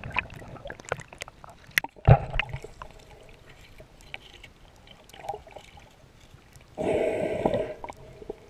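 Water sounds heard underwater while a boat hull is scrubbed and a snorkeller swims beneath it: scattered sharp clicks and gurgling, a thump about two seconds in, and a louder burst of bubbling about seven seconds in.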